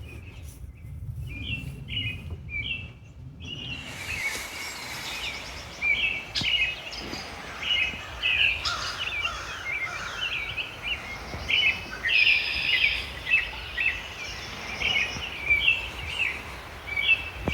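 Songbirds chirping and singing in a steady run of short, repeated phrases, over a faint background hiss that fills out a few seconds in.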